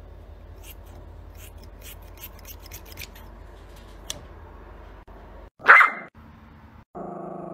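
Small scissors snipping a Yorkshire terrier's fur: a run of quick light snips over a low hum. About six seconds in, a single short, loud dog bark. A steady held tone begins near the end.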